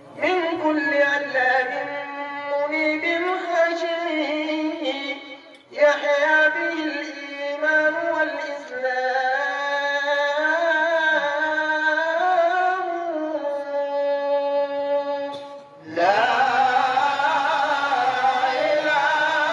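Unaccompanied Samai devotional chanting: a single voice sings long, wavering, ornamented phrases, pausing briefly about six seconds in. About sixteen seconds in, a louder chorus of men's voices comes in together.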